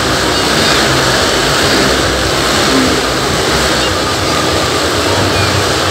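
Motorcycle engines running and revving continuously inside a steel-mesh globe of death, as the riders circle the sphere.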